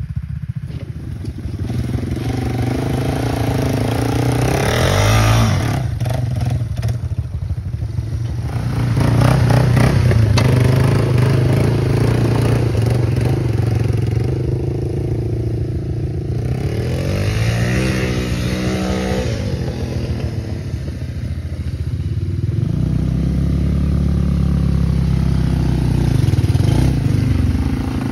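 An old four-wheeler ATV's engine running under throttle, revving up and easing off repeatedly as it is ridden through grass and mud, louder and quieter as it moves away and comes back.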